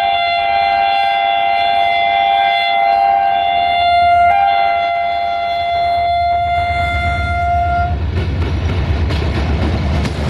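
Multi-tone horn of a GM diesel-electric locomotive, sounded in one long chord with two short breaks, stopping about eight seconds in. The locomotive then passes close by with a deep engine rumble and wheels clicking over the rail joints.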